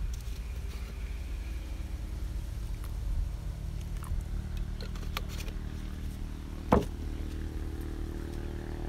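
Steady low hum, with a few light clicks and one sharper knock about seven seconds in.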